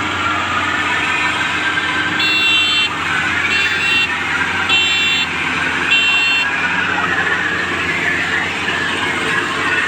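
Wardhaman TREC combine harvester running steadily, engine and machinery together. Four short, high electronic beeps come about a second apart in the first half.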